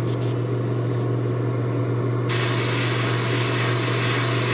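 Airbrush spraying paint: two brief puffs of air near the start, then a steady spray hiss from about two seconds in until near the end. A steady low hum runs underneath throughout.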